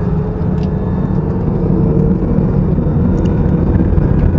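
Jet airliner heard from inside the cabin: a loud steady rumble with a thin engine tone that rises slightly as the engines spool up for takeoff. The rumble grows a little louder toward the end.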